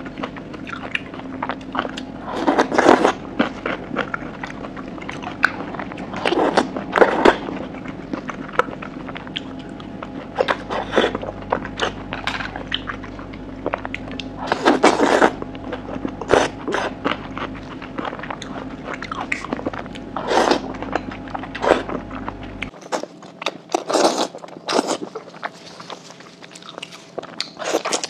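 Close-miked eating of skewered oysters: bites and chewing in irregular bursts, with several louder bursts a few seconds apart.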